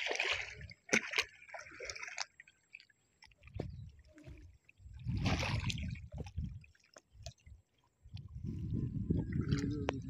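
Splashing and squelching of hands, feet and a dragged net in shallow water and wet mud, coming in several separate bursts: near the start, around the middle and again towards the end.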